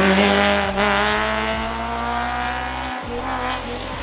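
A motor vehicle engine accelerating, its pitch rising steadily for about three seconds, over a steady low hum.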